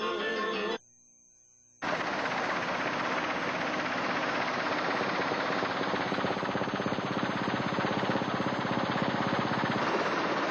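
Helicopter noise heard from inside the cabin: a steady, dense rapid chopping of the rotor over the engine. It starts about two seconds in, after music breaks off and a second of near silence.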